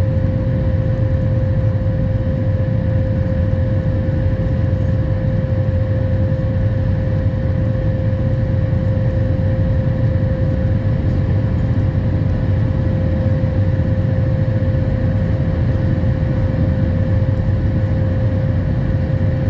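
Cabin noise of a Boeing 737 MAX 8 climbing after take-off, heard inside the cabin over the wing: the CFM LEAP-1B engines and rushing air make a steady deep rumble, with a constant hum-like tone above it.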